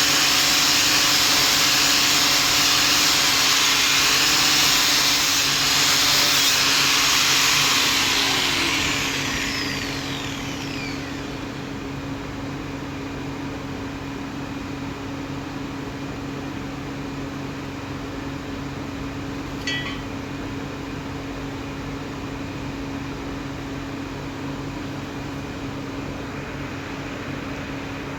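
Angle grinder polishing steel for about eight seconds, then switched off, its whine falling as the disc spins down. A steady low hum carries on after it, with one short high blip about two-thirds of the way through.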